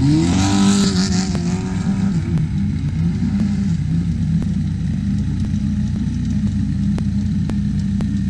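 Turbocharged diesel long-tail boat engine running hard at speed, a steady loud drone that wavers slightly in pitch. In the first second or so the pitch rises with a rush of hissing noise, then it settles.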